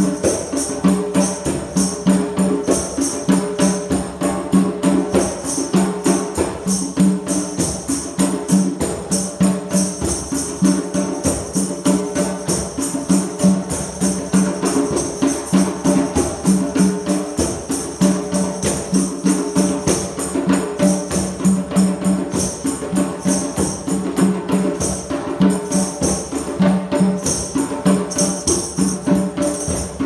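Small drum circle playing hand drums together in a steady, even rhythm, with jingling percussion over the drum strokes.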